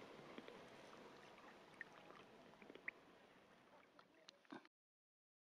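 Faint water sounds of a canoe on the water: a soft, even wash with a few small drips and knocks, slowly fading, then cutting off abruptly to silence a little over four seconds in.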